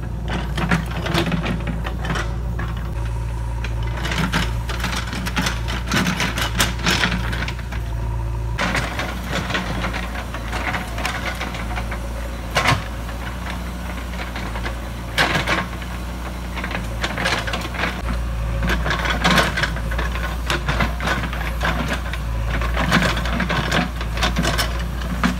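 JCB 3DX backhoe loader's diesel engine running steadily as the backhoe digs, with frequent irregular clanks and rattles from the arm and bucket.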